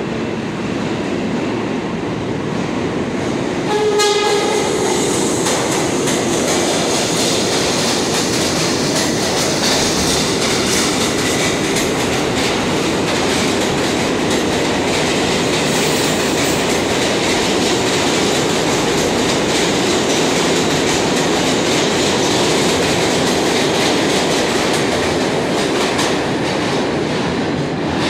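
A New York City subway D train gives a short horn blast about four seconds in, then runs through the station on the express track without stopping. Its wheels and motors make a loud, steady rush that fades near the end as it leaves.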